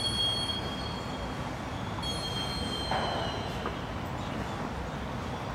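Steady outdoor background noise with two long, high-pitched squealing tones: one fading out about half a second in, and another from about two seconds in lasting about a second and a half.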